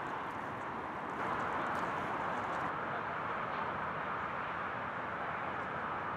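Steady outdoor background noise, an even hiss with no distinct events, growing slightly louder about a second in.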